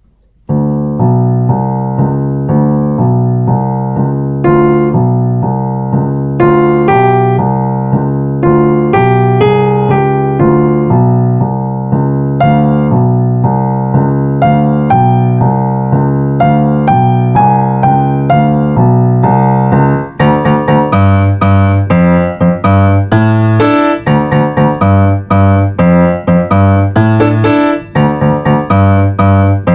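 Yamaha grand piano played in a steady rhythm, a melody over repeated low notes. About twenty seconds in the playing turns detached, short notes with gaps between them, and higher notes join in.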